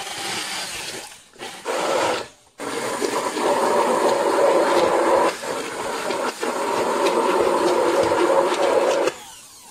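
All-metal immersion blender puréeing hot fried carrots with tomato paste. It runs in two short bursts, then runs steadily for about six seconds and stops near the end.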